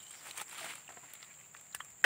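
Steady high-pitched insect trill, faint, with soft rustling in the grass and two light ticks near the end.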